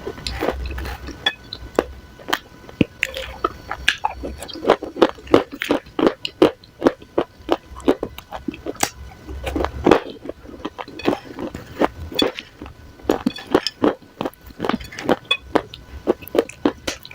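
Dry clay crumbs being crunched close to the microphone: a dense, irregular run of sharp crackles and snaps, several a second.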